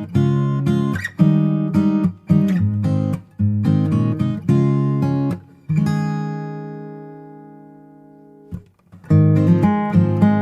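Background music: strummed acoustic guitar chords, with one chord left ringing and fading out before the strumming picks up again near the end.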